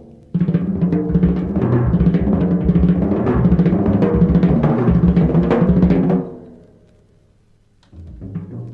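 Jazz music with bass and drums. It breaks off about six seconds in and starts again near the end.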